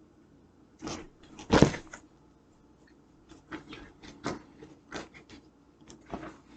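Scrapbook being handled between clippings: a loud knock about a second and a half in, then scattered taps and rustles.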